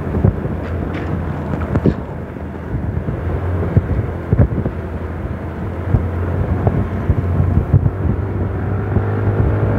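Engine of a moving vehicle running steadily with road and wind noise, heard from on board, with scattered small bumps and knocks. The engine's drone grows fuller near the end.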